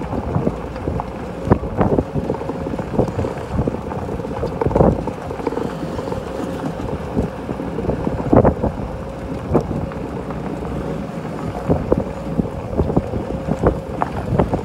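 Wind buffeting the microphone, with irregular knocks and a steady hum underneath.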